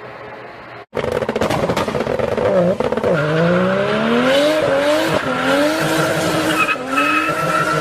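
Race motorcycle engine accelerating hard at full throttle, its pitch climbing and dropping sharply several times as it shifts up through the gears. It cuts in abruptly about a second in, replacing a steady low hum.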